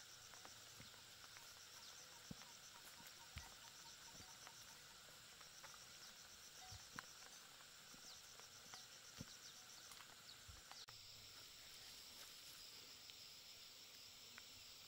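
Faint insects chirring steadily in a high, pulsing trill, with a few soft clicks scattered through.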